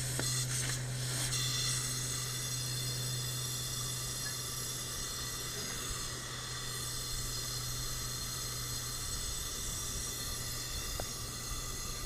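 Pressurised nitrogen hissing steadily through an ice machine's refrigerant line, with a low hum underneath, blowing flush solvent and old black compressor oil out of the open line end.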